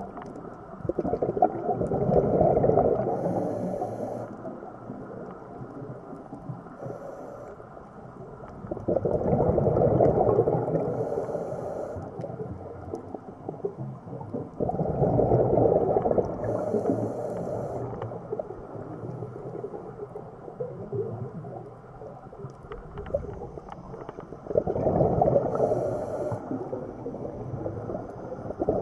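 Scuba diver's regulator breathing underwater: a burst of bubbles rumbling and gurgling out on each exhale, lasting two to three seconds, with a hiss near its end, coming about every six to ten seconds with a quieter steady wash between.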